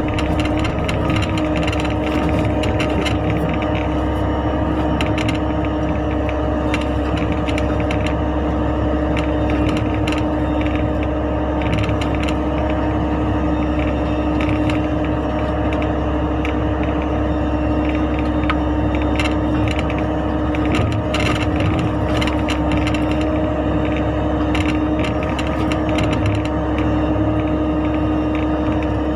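Mini excavator's diesel engine running at a steady speed, with scattered clicks and knocks from the working machine.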